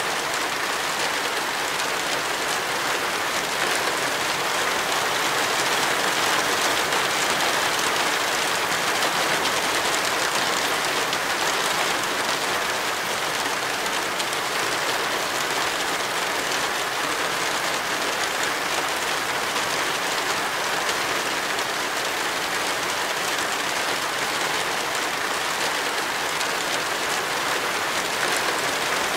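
Heavy tropical rain falling in a steady, even downpour, with no breaks or let-up.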